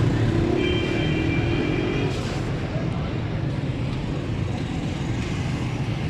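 Steady rumble of street traffic in a busy motorcycle market. A vehicle horn sounds once, about half a second in, for roughly a second and a half.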